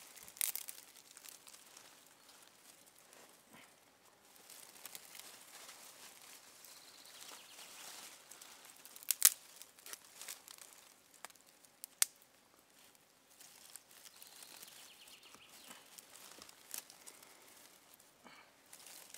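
Dry twigs, grass and leaves rustling and crackling as they are handled, with a few sharp snaps; the loudest snap comes about halfway through and another a few seconds later.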